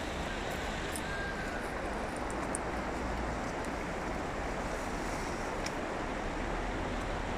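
Steady rushing wind noise on the microphone, with an uneven low rumble.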